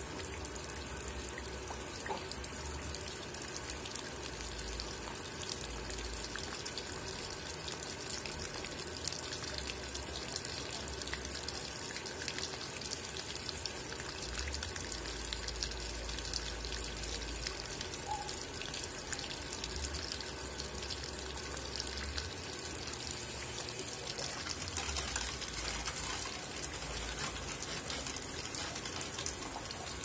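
Consul 13 kg top-load washing machine filling: water pours from the inlet into the tub of clothes in a steady stream. A low hum comes and goes every few seconds underneath it.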